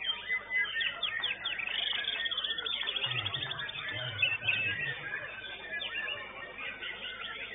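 White-rumped shamas (murai batu) singing in a continuous stream of whistled sweeps, slurs and fast trills, with a low murmur of voices in the middle.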